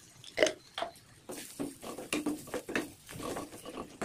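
A spoon knocks sharply against a metal kadai about half a second in, then a steel spoon stirs and scrapes cluster beans curry in the pan in irregular short strokes.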